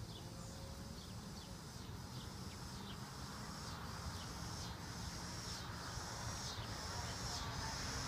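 Honeybees buzzing around an open hive, a steady low hum that grows louder near the end. A high falling chirp repeats about once a second over it.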